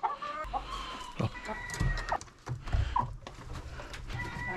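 A hen calling, with one drawn-out note starting about a second in and a few short clucks, over knocks, clicks and scraping as gloved hands rummage in a nest box for eggs.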